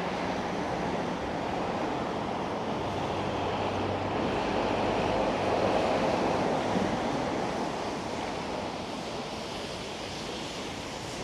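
Wind buffeting the microphone outdoors, swelling for a few seconds midway, over a faint steady low hum of distant machinery.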